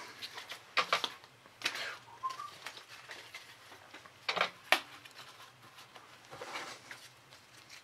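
Baseball trading cards being handled and set down on a stack: a few short, crisp snaps of card stock with light rustling, and a brief faint chirp about two seconds in.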